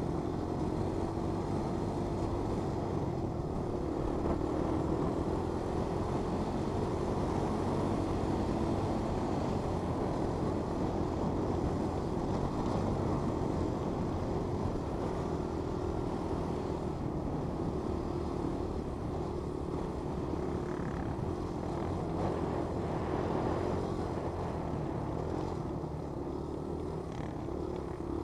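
Honda 200SX quad's single-cylinder four-stroke engine running steadily under way over open ground, its note holding with only a slight waver and easing a little near the end.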